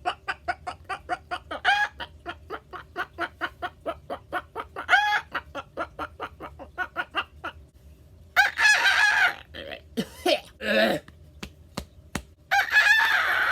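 A man's vocal impression of a chicken: a long run of rapid clucks, about five a second, broken twice by a longer squawk. After a short pause come two longer drawn-out calls, the second running on at the end.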